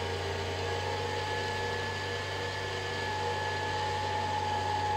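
Janome sewing machine's electric motor running steadily under the foot pedal, spinning the bobbin winder as thread is wound onto the bobbin, with the hand wheel released so the needle stays still. It is a steady whir with a low hum and a constant tone above it.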